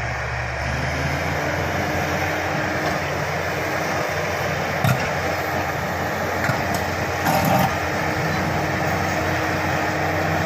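Bulldozer's diesel engine running steadily, with a few short metallic knocks about five and seven seconds in.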